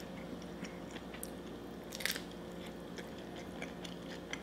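A person chewing food close to the microphone: soft, wet mouth clicks and a few small crunches, the sharpest about two seconds in.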